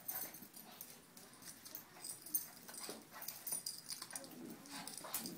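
Two Shih Tzus play-wrestling: claws clicking and scuffling on a tile floor, with short dog vocal noises.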